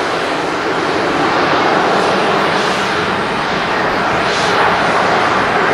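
Boeing 737-500's CFM56 turbofan engines running at low taxi thrust as the airliner rolls and turns onto the runway: a steady jet rush that slowly grows a little louder, with a faint high whine swelling briefly twice.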